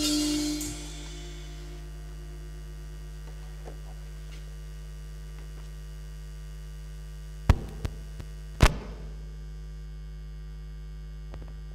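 Steady mains hum from the hall's sound system, after a saxophone tune fades out in the first second. Two sharp knocks about seven and a half seconds in and again a second later stand out as the loudest sounds.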